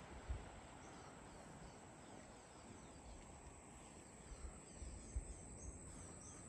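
Faint outdoor ambience: a soft hiss with a few faint, short high chirps from birds and occasional brief low bumps.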